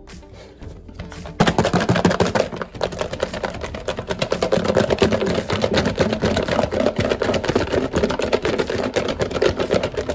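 Chicken bites being shaken hard in a lidded plastic food container to coat them in sauce. A rapid, continuous rattling and knocking of pieces against the plastic starts about a second and a half in.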